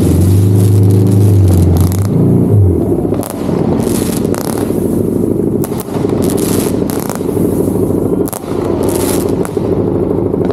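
Motorcycle engine running at a steady pitch, strongest in the first three seconds, with scattered sharp cracks and bangs of fireworks and firecrackers going off around it.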